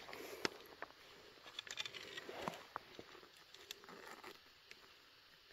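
Faint rustling of a found sweatshirt being handled and its pockets searched, with scattered small clicks.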